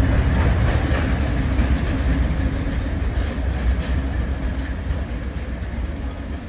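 Class 56 diesel locomotive's 16-cylinder Ruston-Paxman engine running as the locomotive moves off light engine, a deep rumble fading steadily as it draws away. A few sharp clicks in the first few seconds.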